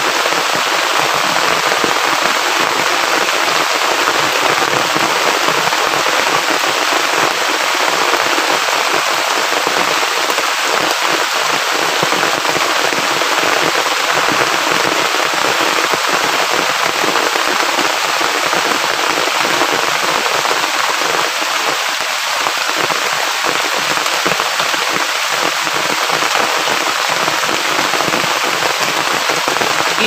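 Heavy rain falling steadily, a dense, unbroken hiss of drops.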